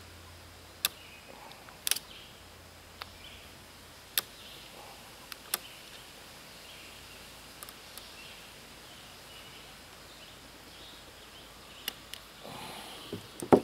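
A screwdriver and hands working on a gas string trimmer's engine: scattered sharp clicks and taps every second or two, over a faint outdoor background.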